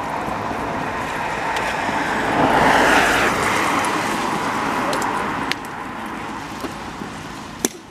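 A car passing on the road: tyre and engine noise swells to its loudest about three seconds in and then fades away. A sharp knock near the end.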